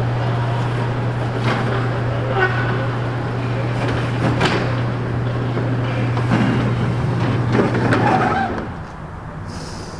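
Motorized sectional garage door closing: the opener motor's steady hum with scattered rattles and knocks from the panels, until it stops about eight seconds in as the door shuts.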